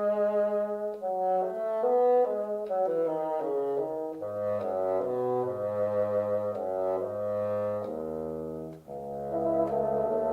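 Background music: brass instruments playing a slow melody over sustained chords.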